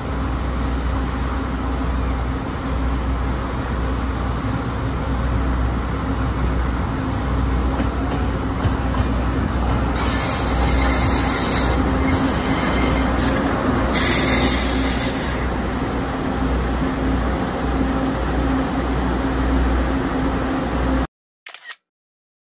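Taiwan Railways DR1000 diesel railcar train running along the station track, its diesel engine humming steadily over the rumble of the wheels on the rails. High wheel squeal screeches twice, about ten seconds in and again around fourteen seconds. The sound cuts off abruptly about a second before the end.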